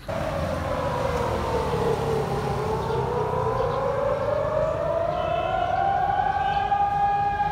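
Civil-defence siren wailing. Its pitch dips a little, then rises slowly over several seconds and holds high near the end, over a steady low rumble.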